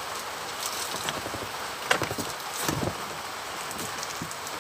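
Steady hiss of rain, with a few faint knocks and clicks about two to three seconds in.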